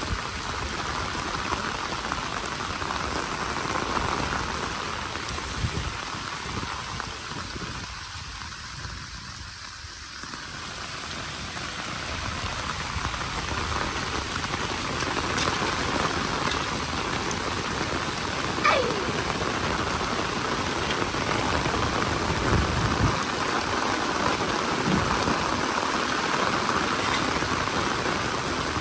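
Steady, heavy rain falling, with a dense patter that eases a little for a few seconds about a third of the way through, then picks up again.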